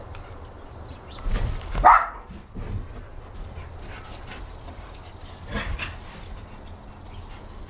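Dogs playing together, with one loud bark about two seconds in and a second, weaker bark a little before six seconds.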